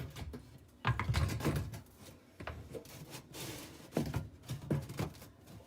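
Plastic dishwasher filter and spray-arm parts being slid and fitted into place: several irregular knocks and clicks with a scraping rub near the middle.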